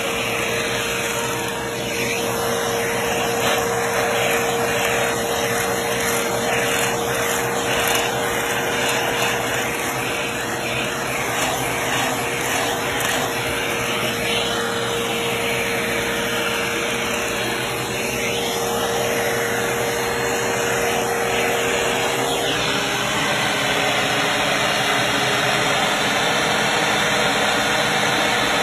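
PowerForce Helix Turbo upright vacuum running steadily with its hose attachment, sucking up dust; its whine shifts to a lower tone about three-quarters of the way through.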